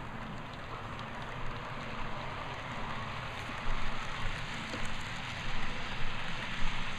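Model freight cars rolling along the layout track behind a slowly accelerating DCC locomotive: a steady rolling rumble with scattered light clicks, louder in spells in the second half.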